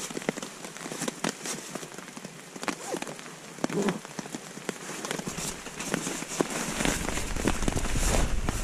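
Rain pattering on a tarp overhead, many small drops, with the rustle of a stuff sack being packed close by. A deeper rumble of handling grows louder in the last few seconds.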